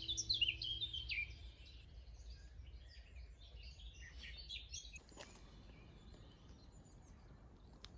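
Small birds chirping and singing outdoors, busiest in the first second or so, then thinning to faint scattered chirps that die away about halfway through.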